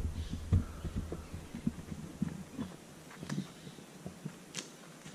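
Footsteps walking on a gravel path: dull low thuds about two a second, with a few sharper crunches.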